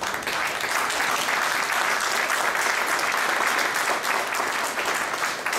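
A large crowd applauding. The clapping swells up suddenly at the start from a few scattered claps and then holds steady.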